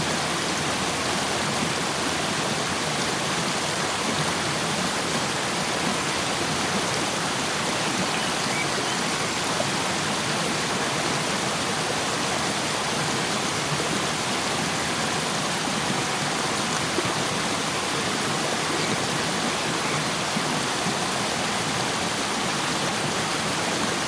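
A fast river rushing and splashing over rocks, a steady dense water noise.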